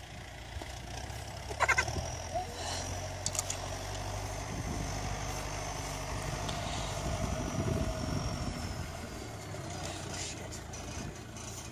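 An engine idling steadily in the background, with a few short sharp knocks as pitchforks dig into the muck heap.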